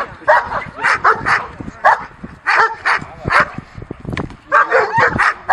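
A 12-month-old German Shepherd barking repeatedly, about two barks a second, in drive at the helper during protection training.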